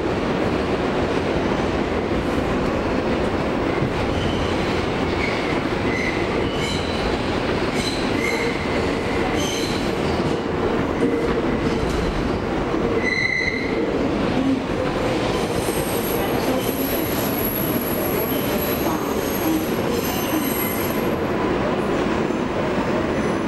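Kawasaki R143 subway car running, heard from inside the car: a steady rumble of wheels on the track. Brief high squeals come and go from about five to fourteen seconds in, and a thin, very high whine holds from about sixteen to twenty-one seconds.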